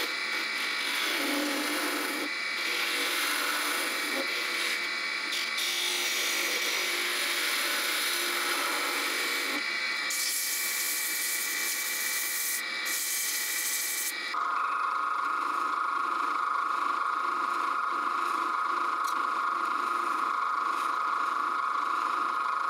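Wood lathe spinning a wooden goblet while a turning tool shaves the underside of its base, a steady scraping cut. About ten seconds in it gives way to a hissier rasp as sandpaper is held against the spinning wood. Then the sound settles into a steadier whine.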